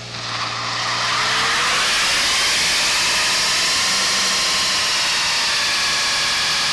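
Holden Commodore doing a burnout, with the rear tyres screeching and the engine held at high revs. It builds up in the first second and then holds steady and loud.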